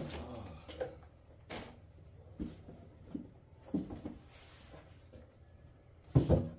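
Plastic packaging and a cardboard box rustling and crinkling in handling as a bagged quilt is lifted out, with a few short scrapes and knocks. About six seconds in, a much louder thump as the cardboard box is set down on the floor.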